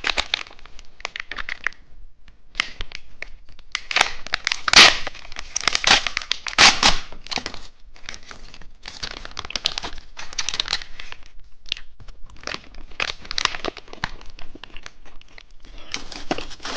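Plastic snack wrapper crinkling and tearing as it is peeled open by hand, in irregular crackly bursts, loudest about five and seven seconds in. The wrapper is that of a two-colour cheese stick snack.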